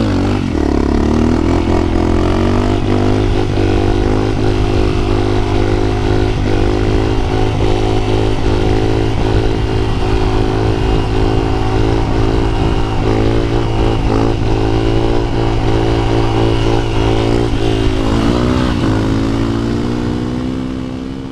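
Honda CRF250L's single-cylinder four-stroke engine running steadily while riding, with a few brief rises and falls in pitch from throttle changes. The sound fades out near the end.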